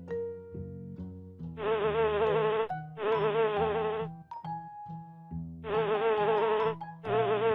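Bee buzzing in four bursts of about a second each, a wavering pitched drone, over a light children's tune of plinked notes.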